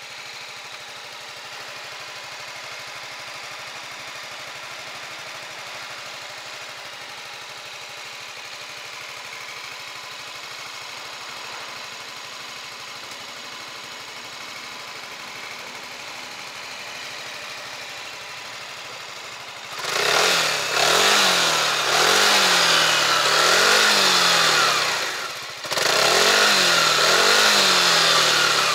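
Honda Forza 350 scooter's single-cylinder engine through its stock exhaust, idling steadily for about twenty seconds, then revved in a run of quick throttle blips, the pitch rising and falling about once a second, with a short dip shortly before the end.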